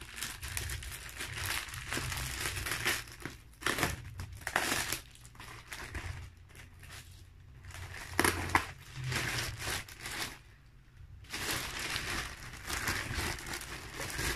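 Plastic package wrapping crinkling and rustling as it is handled and opened by hand, in uneven bursts with two brief lulls.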